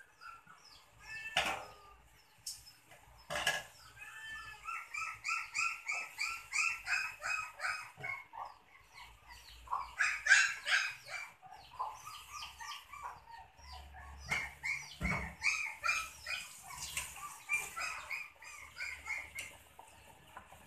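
Birds calling in the background, long runs of short chirping notes repeated several times a second, with two sharp knocks early on.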